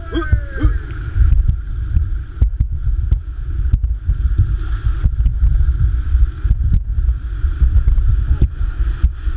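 Rushing whitewater with wind buffeting the microphone and scattered sharp knocks; a voice calls out briefly at the very start.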